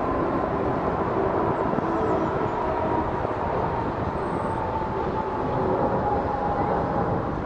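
Airbus A380's four Rolls-Royce Trent 900 turbofans heard from below as it climbs after takeoff: a steady rushing jet noise with a whine that slowly falls in pitch.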